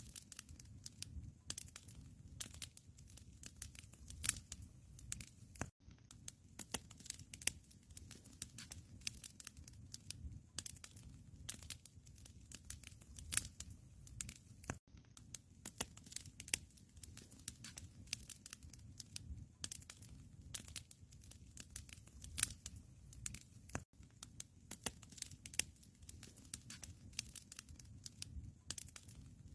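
Wood fire crackling in a fireplace: dense, irregular pops and snaps over a low, steady rumble.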